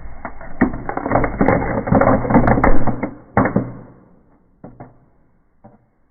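Fireplace firework crackling: a dense run of rapid pops and crackles for about three and a half seconds, then a few single pops.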